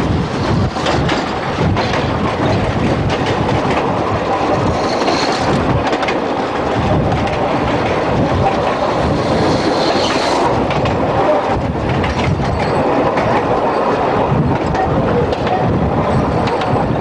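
Narrow-gauge steam train's carriages running at speed, heard from an open carriage window: a steady rumble with the wheels clattering over rail joints, and two brief faint high squeals about five and ten seconds in.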